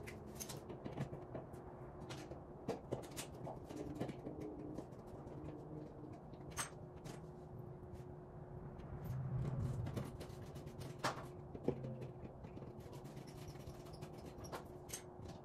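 Scattered light clicks and knocks of hand work under a pickup's front wheel well, taking off rock lights, over a faint steady hum; a low rumble swells briefly about two-thirds of the way through.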